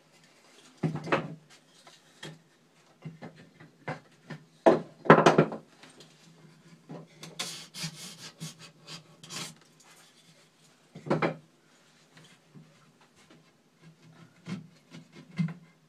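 Wooden braces being worked loose from a fiberglass boat hull: irregular wooden knocks, the loudest around five seconds in, with a stretch of harsh scraping in the middle and another knock near eleven seconds.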